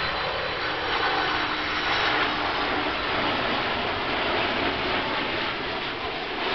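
Jet engines of a FedEx cargo jet passing low on landing approach: a steady rushing jet noise that swells about a second or two in.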